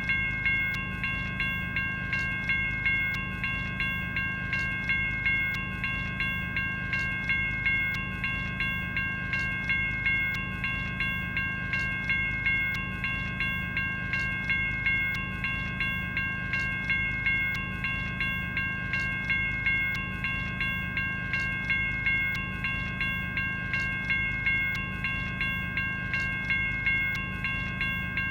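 General Signals Type 1 electronic railroad-crossing bell ringing: a steady run of evenly spaced strikes, each carrying a bright, ringing bell tone.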